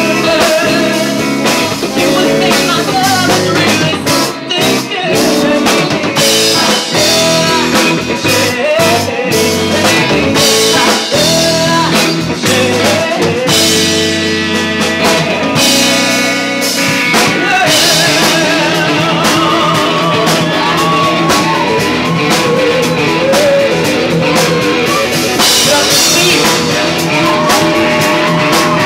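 A rock band playing live: a male singer's vocals over electric guitar, electric bass and a drum kit.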